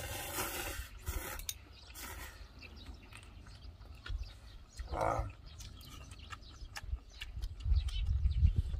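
Ramen noodles being slurped from a bowl: several noisy slurps in the first couple of seconds, then softer eating sounds. A short hummed voice sound comes about five seconds in, and a low rumble rises near the end.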